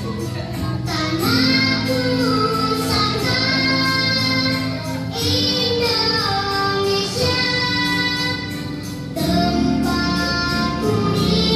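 Children's song with a high singing voice over instrumental backing, played as the music for a kindergarten exercise routine.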